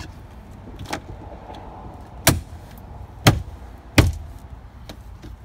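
Mercedes ML320 door trim panel being struck by hand to seat its plastic retaining clips in the door: a light knock about a second in, then three sharp thumps about a second apart.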